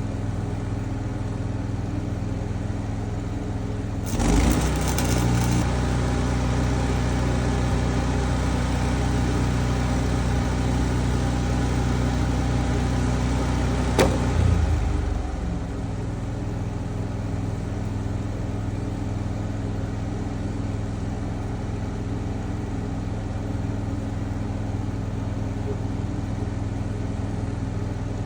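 Stick welding with an engine running steadily in the background. About four seconds in, the arc is struck and a crackling hiss runs for about ten seconds while the engine hum grows louder. A sharp click comes near the end of the weld, then the engine settles back to its steady running.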